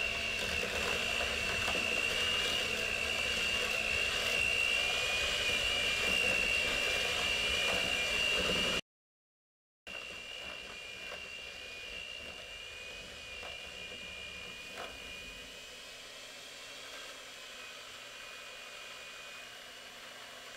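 Electric hand mixer running, its beaters working through a thick mix of butter, cream cheese and sugar. The motor spins up with a rising whine at the start and then runs steadily with a high whine; a little under halfway through the sound cuts out completely for about a second, then the mixer carries on more quietly.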